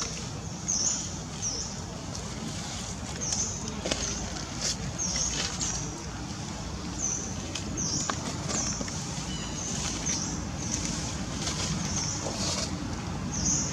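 Outdoor forest ambience: short, high chirps repeating irregularly, about one or two a second, over a low steady rumble, with a few faint clicks.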